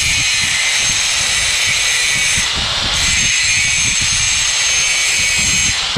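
Handheld angle grinder running with a steel bolt held against its abrasive disc, grinding the bolt's end to a point. The sound is a steady high-pitched whine over a grinding hiss.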